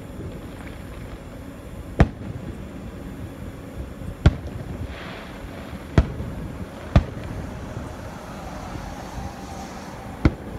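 Aerial firework shells bursting: five sharp bangs, one to three seconds apart, over a steady low background rumble.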